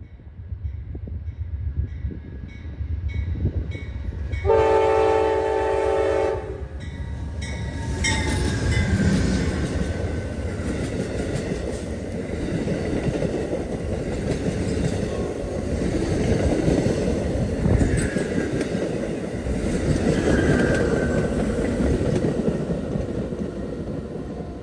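Amtrak passenger train sounding its horn once, a chord lasting about two seconds, as it approaches. It then passes close by, with a steady rumble of wheels on the rails, clicks at the rail joints and faint wheel squeals, easing off near the end as it moves away.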